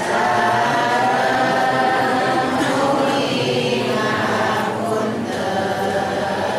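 A group of voices chanting together in unison, a continuous sung recitation with short breaks between phrases about two and a half and five seconds in.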